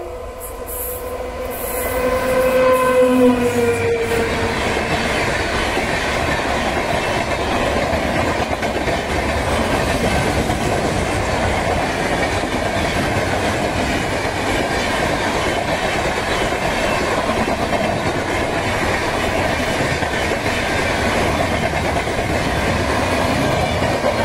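An express train's electric locomotive sounds its horn as it approaches, and the pitch drops as it passes about three to four seconds in. Then comes the steady, loud rush and rumble of the coaches' wheels on the rails as the train runs past at speed.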